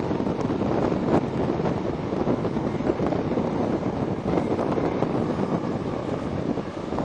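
Wind rushing over the microphone held out of the window of a moving Mk3 train coach, over the steady running noise of its wheels on the track, with a single knock about a second in.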